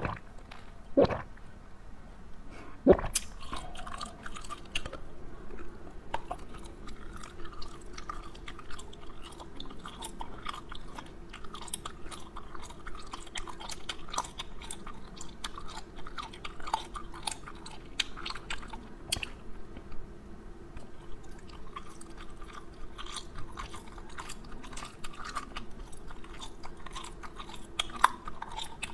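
A person biting and chewing a skull-shaped dessert close to a clip-on microphone, with crunching. Sharp bites come at the start, about a second in and about three seconds in, followed by steady crackly chewing.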